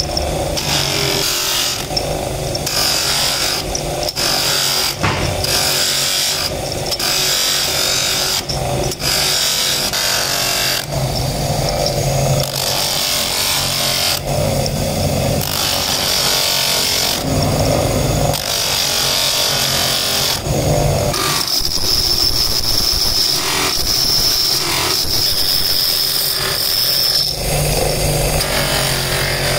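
An electric motor spins an abrasive grinding wheel while the steel rim of a tapered roller bearing is pressed against it to grind off rust. A steady motor hum runs under grinding passes of a few seconds each, with short breaks as the bearing is lifted off and turned.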